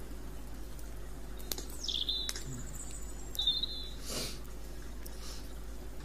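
Wood campfire crackling with a few sharp snaps, while a songbird gives a short run of whistled notes in the middle: one falling note, then high steady whistles. A brief soft rushing burst follows the whistles.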